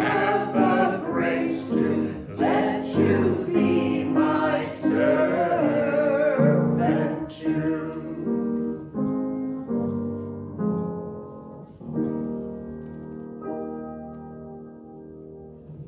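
A few voices singing a hymn to upright piano accompaniment. About halfway through, the singing stops and the piano plays on alone, more softly, to close the hymn.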